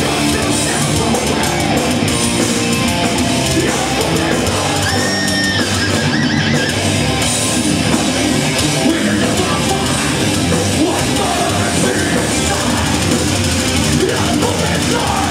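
Heavy metal band playing live: distorted electric guitars, bass and drum kit under the singer's yelled vocals, loud and unbroken.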